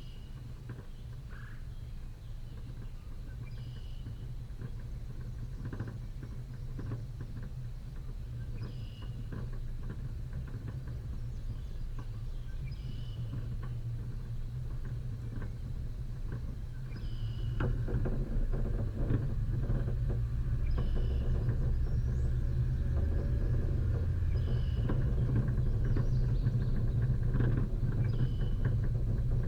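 Off-road vehicle's engine running at low speed on a rough dirt track, with knocks and rattles from the body and suspension. It grows louder about two-thirds of the way through. A short high chirp repeats every few seconds.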